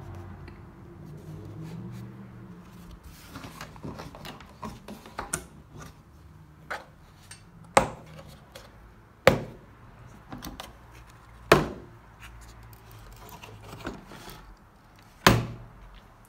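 Plastic latches on a hard plastic spray gun kit case snapping open: four loud sharp clicks a couple of seconds apart. Softer clicks and rubbing from handling the case come before and between them.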